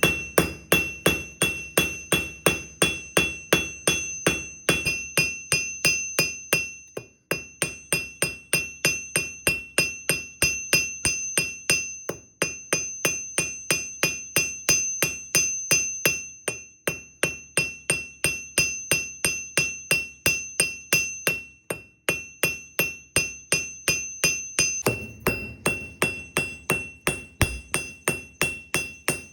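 Hammer striking steel on an anvil in steady runs of about three blows a second, with a few brief pauses. Each blow has a bright metallic ring. This is a blacksmith drawing the tip of a horseshoe out flat into a bar.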